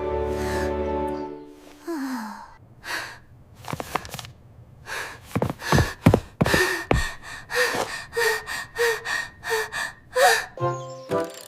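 Cartoon background music: a held chord that stops just over a second in, then a run of short sharp hits and quick repeated notes over a steady high tone.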